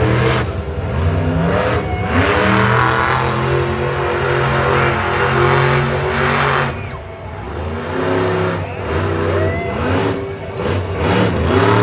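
Monster truck engines revving hard several times, pitch climbing and falling back with each rev, loud throughout and easing off somewhat after the middle.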